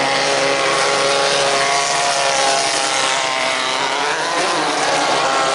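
Several 1600cc off-road race buggy engines running on a dirt track, their overlapping pitches rising and falling slightly.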